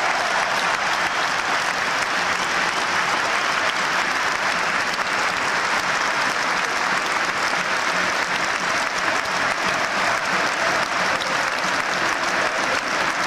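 Large stadium crowd applauding, a dense, steady clapping that holds at the same level throughout.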